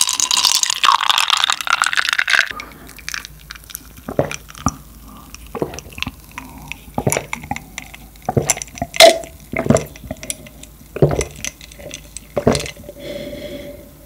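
Close-miked drinking from a small glass: separate sips, gulps and wet mouth clicks spaced out over several seconds, after a short hiss of liquid noise in the first two seconds.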